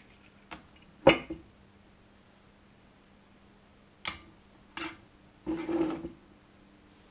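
Metal spoon clinking and knocking against a swing-top glass jar while stirring sticky melted styrofoam, with one sharp knock about a second in. Two more clinks follow, then a short clattering scrape as the jar is handled on the worktop, over a faint steady hum.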